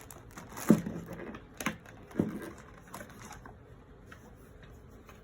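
Plastic model kit sprues being handled and set down: a few light knocks and clicks with some rustling.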